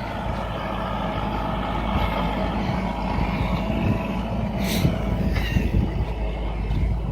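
An engine running steadily close by, with a short hiss a little before five seconds in.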